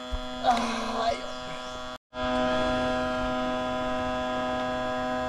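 Steady droning hum with a brief rustle about half a second to a second in. The sound cuts out completely for a moment about two seconds in, then the hum carries on unchanged.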